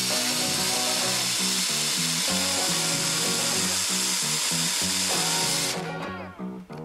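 Power drill boring through the spot welds on a Tecumseh ignition coil's steel laminations, running steadily, then stopping about six seconds in. Background music with a steady beat plays underneath.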